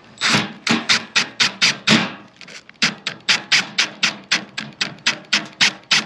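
Hammer blows struck in a quick steady rhythm, about four a second, with a brief pause about two seconds in.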